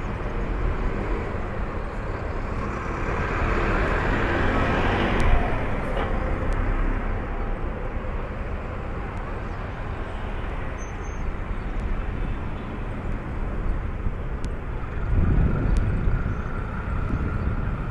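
Street traffic: a steady low rumble of road vehicles, with one vehicle passing about four to six seconds in and another, deeper-sounding one passing near the end.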